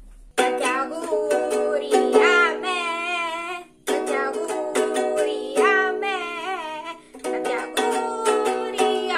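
Ukulele strummed in chords while a woman sings a home-made intro jingle over it. The playing starts abruptly just after the start and breaks off briefly twice.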